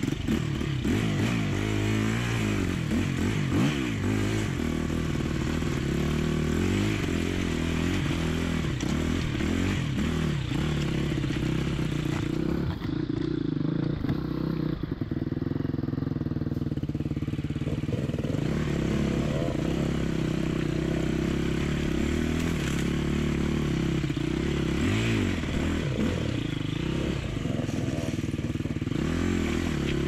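Enduro motorcycle engine running, its revs rising and falling repeatedly as it is worked over loose rock, with stones clattering under the tyres.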